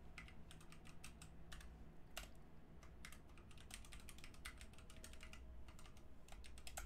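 Computer keyboard typing: a run of faint, irregular keystrokes.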